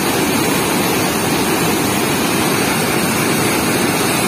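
Steady rush of white water churning out through the open floodgate of a weir, an even, unbroken noise of turbulent water.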